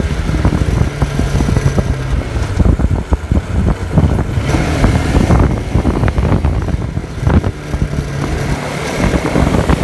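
Motorcycle running on the move, with heavy wind buffeting on the microphone; a steady engine hum stands out about a second in and again near the end.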